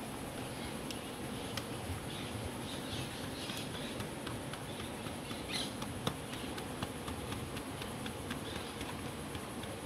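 Steady high-pitched drone of insects in the surrounding woods, with a few faint scattered taps as hands press tortilla dough flat on a plastic sheet over a wooden board.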